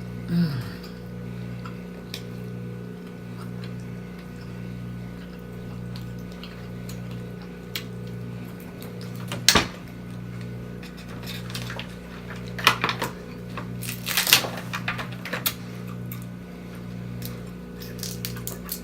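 Snow crab legs being handled and cracked open by hand: scattered sharp clicks, one loud crack about halfway through and a run of crackling about two-thirds in. A steady low hum runs underneath.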